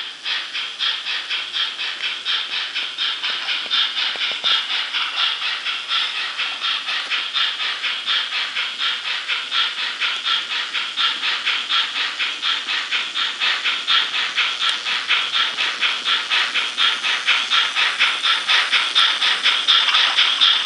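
HO-scale DRG Class 44 steam locomotive model's DCC sound decoder playing steam exhaust chuffs through its small onboard speaker while the model runs. The chuffs come in a rapid, even beat that grows a little louder near the end.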